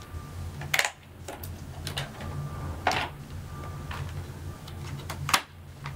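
Cardboard and plastic packaging of a phone case being opened by hand: several sharp scrapes and clicks, heard over a low steady hum.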